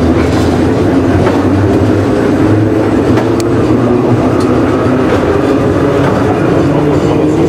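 Sprague-Thomson metro train running: a loud, steady rumble of wheels and traction motors with a low hum, and a few sharp clicks from the track.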